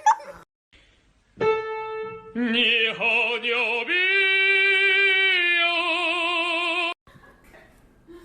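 Music: a sustained keyboard-like note, then an operatic voice singing a short phrase that ends on a long held note with wide vibrato, cut off suddenly about seven seconds in.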